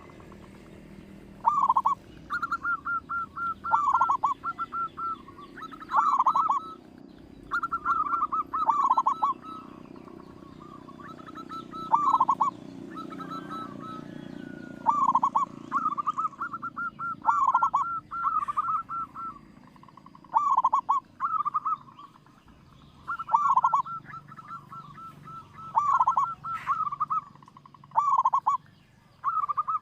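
Zebra dove (perkutut) singing its cooing song over and over: each phrase is a run of quick clipped notes ending in a deeper, drawn-out falling coo, repeated every two to three seconds.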